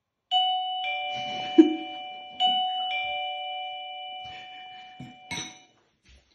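Doorbell chime ringing a two-note ding-dong, high then lower, twice about two seconds apart, each note fading slowly. A short low thump sounds between the two chimes.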